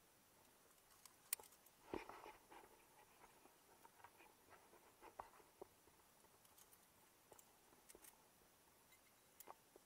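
Near silence broken by faint scattered clicks and light knocks of gear being handled close to the camera, the loudest a knock about two seconds in, followed by a brief scuffle.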